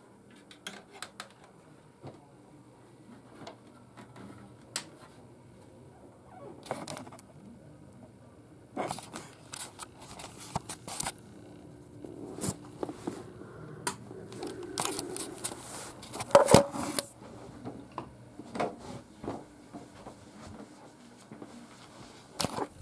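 Scattered knocks, clicks, scrapes and rustling as things are handled and moved about, busier in the second half, with the loudest knock a little past the middle.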